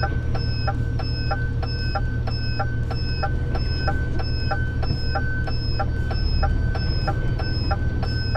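Diesel engine of a DAF CF truck running low and steady inside the cab, with the turn-signal indicator ticking evenly about three times a second.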